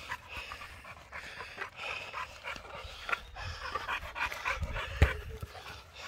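Six-month-old puppy panting quickly and hard, winded from chasing and mouthing a ball. A single dull thump sounds about five seconds in.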